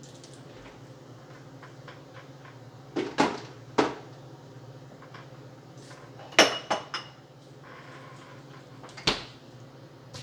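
Kitchen clatter as dishes and utensils are knocked and set down: a few sharp clinks and knocks in small clusters, one of them ringing briefly, over a steady low hum.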